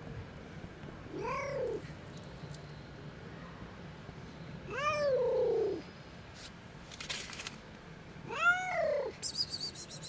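Cat meowing three times, each call rising then falling in pitch, the middle one the longest, with a short hiss between the second and third calls.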